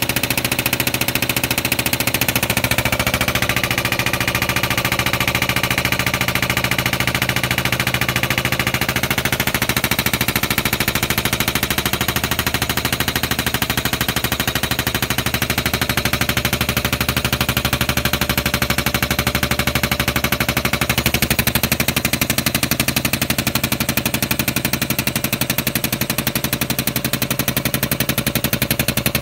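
Pneumatic cab-lift pump on a Peterbilt cab-over truck running continuously with a fast, even rattle as it tilts the cab forward, over a steady low hum.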